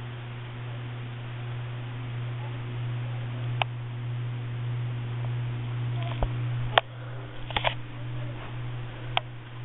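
Hampton Bay Southwind five-blade ceiling fan running on high speed: a steady low hum with a constant rush of air. A few sharp clicks come in the second half.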